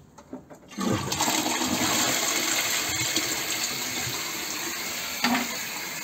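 Toilet flushing: water rushes into the bowl suddenly about a second in, then slowly dies down, with a short knock about five seconds in.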